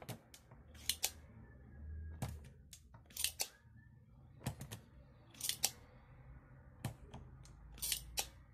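Sharp clicks and snaps, about a dozen and some in quick pairs, from a spring-loaded desoldering pump being cocked and fired at a motherboard's capacitor through-holes to clear out solder so the capacitor's leads will pass, over a low hum.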